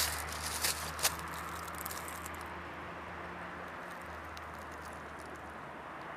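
Outdoor background noise with a steady low hum, and a few sharp clicks in the first second.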